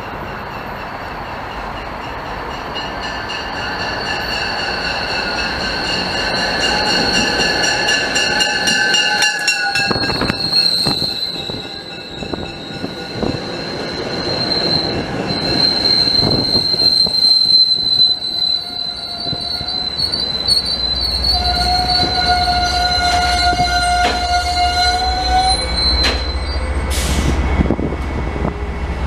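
MBTA commuter rail train pulling into the station and braking to a stop, its wheels and brakes squealing in several high, steady tones as the coaches roll past. A low rumble joins in about two-thirds of the way through.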